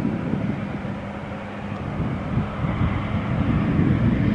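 Airbus A220-300's geared turbofan engines running at low taxi power as the jet rolls by: a low rumble with a steady hum, and a faint high whine coming in about halfway through.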